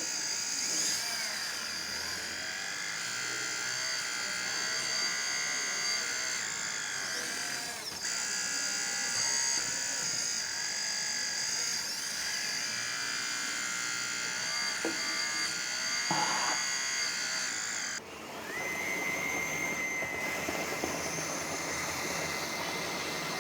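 Electric hydraulic pump of a 1/14-scale RC excavator whining steadily as the arms are worked for digging, its tone shifting as the load changes. About 18 seconds in it dips briefly, then settles into a steadier tone.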